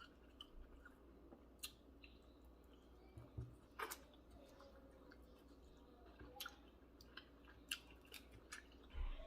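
Faint chewing and eating sounds with a scatter of short, sharp clicks.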